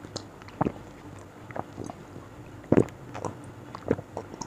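A person drinking water from a glass in gulps, heard close up: a series of short, separate swallowing sounds, the loudest a little under three seconds in.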